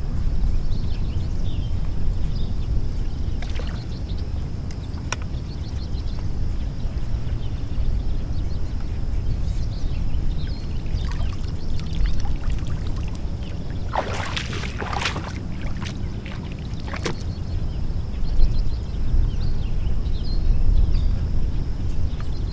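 Water splashing and sloshing as a carp is handled in a landing net in shallow lake water, with a few sharper splashes in a cluster a little past the middle and another shortly after, over a steady low rumble.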